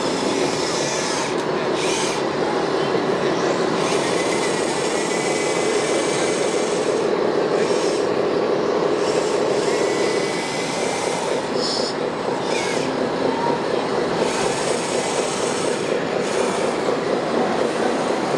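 Steady mechanical running noise, with a faint high whine in places.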